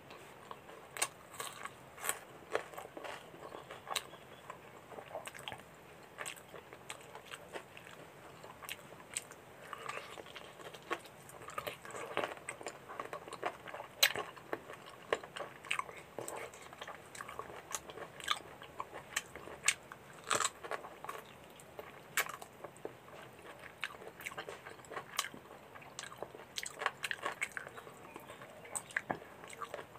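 A person chewing and biting into food: irregular sharp crunches of raw onion rings and chewing of puri with mutton curry, on and off throughout.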